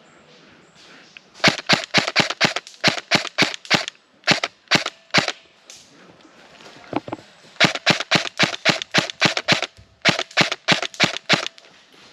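Airsoft gun firing close by in four strings of rapid sharp shots, about four or five a second, with short pauses between the strings.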